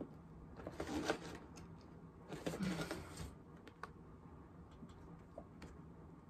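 Cardboard box flaps being opened and a paper card and envelope handled: two short rustles, about a second in and again near the middle, then a few faint light ticks.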